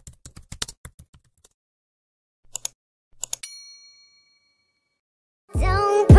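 Intro sound effects: rapid keyboard-typing clicks for about a second and a half, then a few sharp clicks and a bright notification-bell ding that rings out. Music starts near the end.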